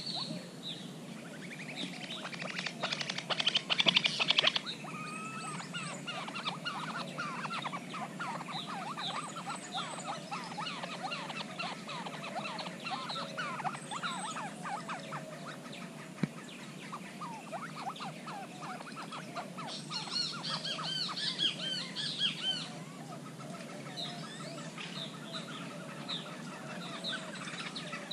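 A flock of plain chachalacas and other birds calling at close range: a dense, continuous run of short, harsh, repeated calls, with louder flurries about three to four seconds in and again around twenty to twenty-two seconds.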